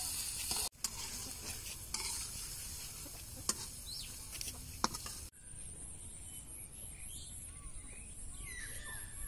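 Food sizzling as it fries in oil in a wok, with a spatula clicking and scraping against the pan as it is stirred. About five seconds in it cuts to a quieter background with a few faint high chirping calls.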